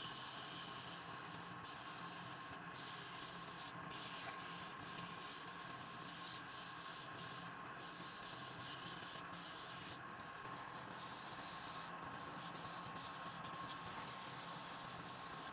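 Wood lathe running with a steady whine, under an even hiss of a tool cutting the spinning wood; the hiss breaks off briefly again and again as the tool lifts from the wood.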